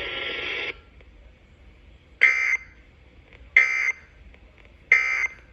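Radio hiss cuts off under a second in. Then come three short, identical data bursts about a second apart: the EAS/SAME end-of-message (NNNN) signal on NOAA Weather Radio, marking the end of the weekly test.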